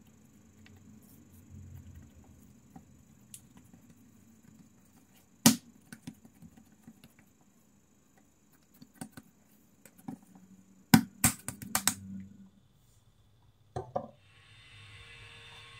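Dough being folded by hand on a stone countertop: soft handling noise with a few sharp clicks and knocks, the loudest a quick cluster a little past the middle. A glass pot lid knocks down over the dough near the end, followed by a faint steady hiss.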